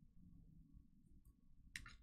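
Near silence with a low steady room hum. Near the end comes a brief, faint handling noise.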